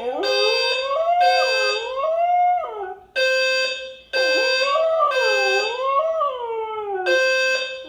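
A dog howling along with a beeping fire alarm: the alarm holds one steady high tone that sounds in stretches, while the dog's long howls rise and fall in pitch over it, with a short break about three seconds in and a new howl starting near the end.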